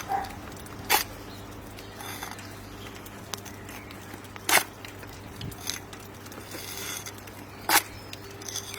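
Steel bricklaying tools scraping and tapping against brick and wet mortar as mortar is packed into the joints around a replaced brick, with a few short sharp clicks, three of them louder than the rest.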